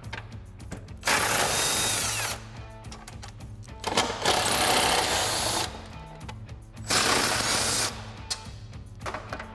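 Cordless impact driver with a 13 mm socket running in three short bursts, each a second or so long, as it backs bolts out of the factory bumper brackets. Background music with a steady beat plays underneath.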